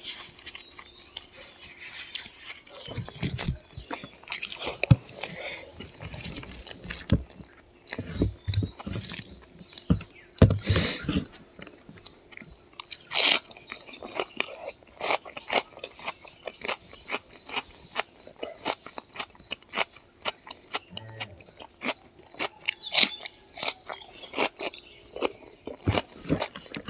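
Close-miked eating of spicy pork with plain rice: a person biting and chewing, with many irregular mouth clicks and smacks.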